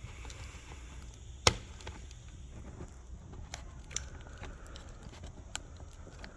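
Hands working a laptop's screen cable connector loose: quiet handling noise with a few small clicks, and one sharp, loud click about a second and a half in.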